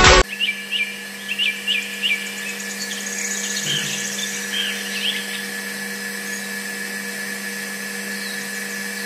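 Small electric DC motor humming steadily as it drives a miniature belt-driven water pump, starting about a quarter second in. Birds chirp over it, a run of quick chirps in the first two seconds and a few more around the middle.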